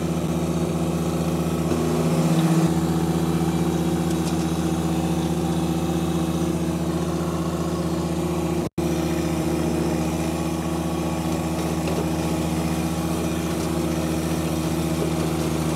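John Deere 1025R sub-compact tractor's three-cylinder diesel running at a steady working speed, driving a PTO flail mower. The engine note rises slightly about two seconds in, and the audio cuts out for an instant just before the nine-second mark.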